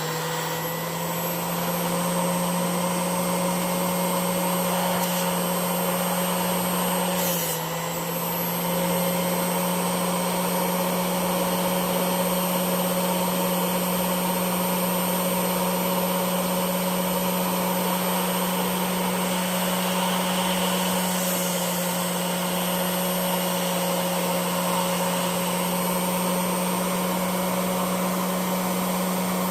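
Electric buffing wheel's motor running steadily with a constant hum and whine, dipping briefly about seven seconds in.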